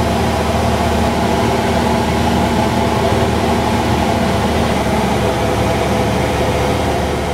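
Cessna 172 Skyhawk's piston engine and propeller running steadily in flight, a constant drone heard inside the cockpit.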